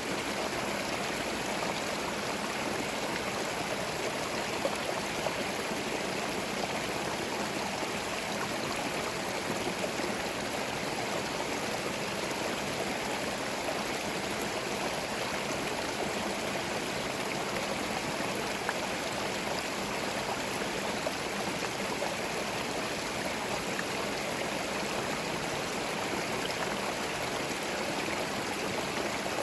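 Small forest stream flowing over stones, a steady babbling and gurgling with occasional splashes.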